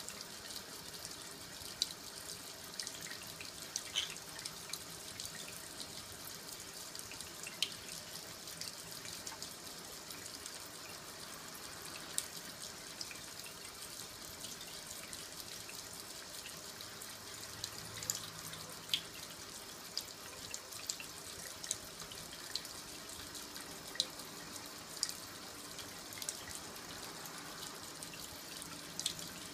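Thin stream of water running from a kitchen faucet into a sink, a steady splashing hiss, with occasional sharp ticks scattered through it.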